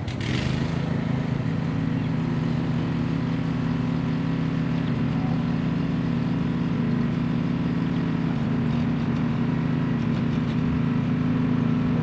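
NiftyLift TM34T boom lift's engine running steadily at one even pitch.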